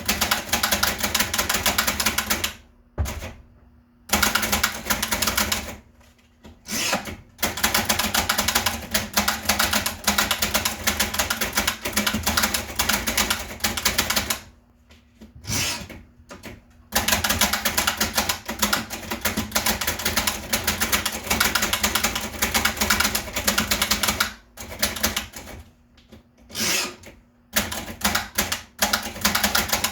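Typing on a 1920s Bing No.2 portable typewriter: fast runs of key strikes, broken four times by pauses of a second or two.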